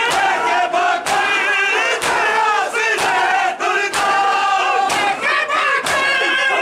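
A crowd of men chanting a noha together while beating their bare chests in unison (matam), a sharp slap of many hands landing about once a second over the steady chanting.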